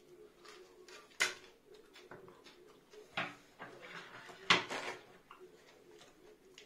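Scattered sharp clicks and knocks of eating at a table, with a paper towel torn off a standing roll a little past halfway, the loudest sound.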